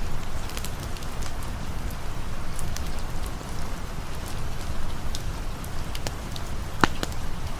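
Steady rain falling, with scattered light clicks and one sharper snap near the end.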